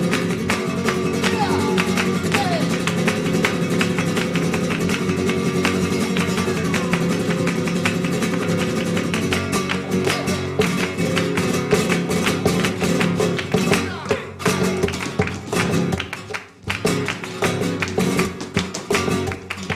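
Flamenco music led by acoustic guitar, with fast, closely packed percussive strokes over sustained chords. The playing grows sparser and more broken about two-thirds of the way in.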